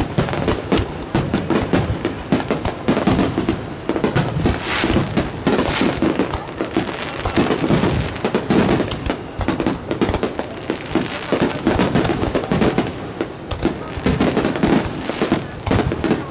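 Barrage of aerial firework shells bursting in rapid succession, the bangs following one another several a second and overlapping without a pause.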